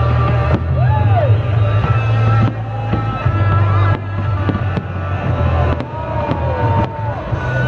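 Loud music with a heavy, pulsing bass, overlaid from about two and a half seconds in by several sharp fireworks bangs.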